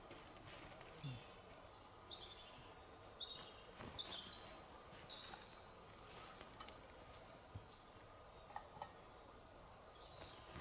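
Quiet forest ambience with a small bird giving a string of short, high chirps in the first half, among a few soft scattered clicks and rustles.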